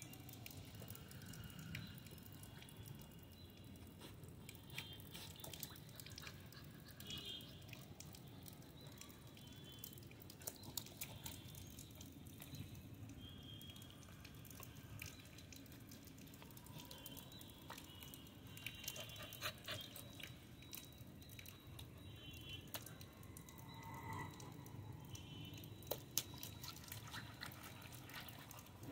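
Faint drips and small splashes of shallow water as a Labrador puppy paws and mouths at a puddle, heard as scattered light clicks.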